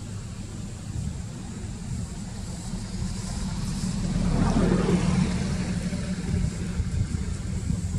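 A motor vehicle passing: a low engine rumble that grows louder to a peak about halfway through, then fades back to a steady background rumble.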